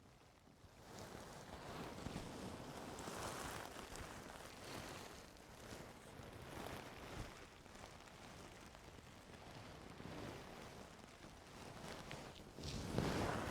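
Ear-cleaning tools rubbing and scraping inside an ear close to the microphone: a soft rustling that comes in uneven swells, starting about a second in and growing louder near the end.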